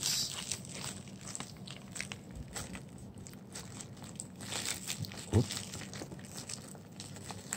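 Plastic poly mailer crinkling and crackling as a hand reaches inside it and works the cards out. One brief, louder low sound comes about five seconds in.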